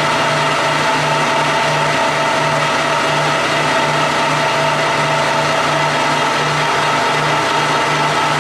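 Clausing Colchester 15x50 lathe running at 840 RPM during a light dry turning cut. It is a steady machine whine of several tones, with a low hum that pulses about three times a second.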